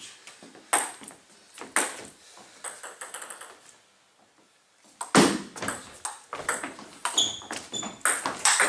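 Table tennis ball bounced twice on the table before a serve. About halfway through comes a sharp thump as the serve is played, then a quick rally of the celluloid ball clicking off bats and table a few times a second, some hits with a short ringing ping.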